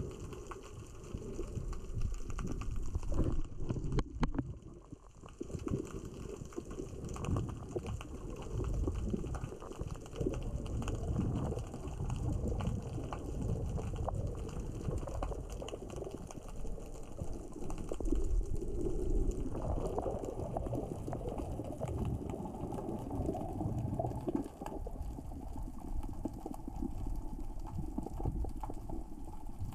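Underwater sound of small rocks rolling across the sea floor as the current and tide surge move them: a dense crackle of many tiny clicks over a low rumble. It dips briefly about four seconds in.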